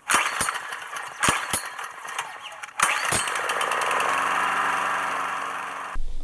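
Strike Master ice auger's small gas engine firing unevenly with sharp pops, then settling into a steady run from about four seconds in, cut off abruptly just before the end.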